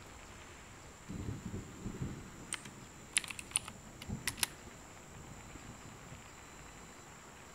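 Computer keyboard keys clicking: a quick run of about seven key presses in the middle, with low muffled thumps just before them and once more among them.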